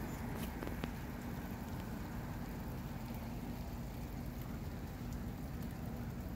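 Steady rain shower falling, an even hiss with no break, with a few sharp taps in the first second.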